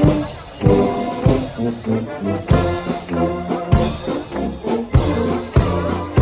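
Brass band playing a march, trombones and trumpets holding chords over a bass line, with a bass drum struck steadily a little under two times a second.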